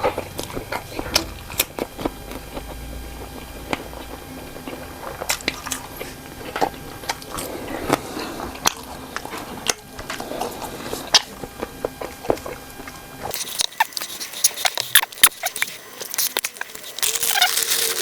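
Close-miked eating sounds: cocktail sausages with green chili sauce being bitten and chewed, with wet mouth clicks and smacks at an irregular pace.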